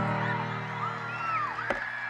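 Live rock band playing the opening of a song: a held low chord, with crowd whistles and shouts gliding over it. A sharp click sounds near the end.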